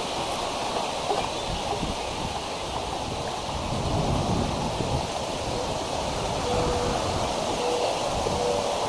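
Wind blowing through the treetop and buffeting an outdoor camera microphone, with leaves rustling. The noise is steady, with gusty rumbling underneath.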